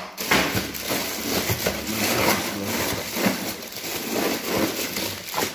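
Plastic bags of meat rustling and crinkling as they are pushed and packed into a freezer drawer, with a continuous run of small crackles.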